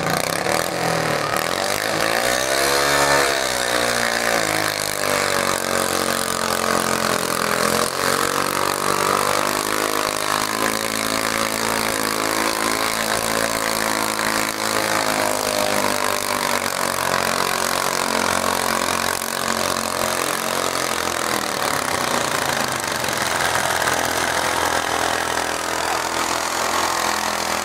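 Small garden pulling tractor's engine revving hard about two seconds in as the pull starts, then running at high revs under load as it drags the weight sled, its pitch slowly sinking through the second half of the run.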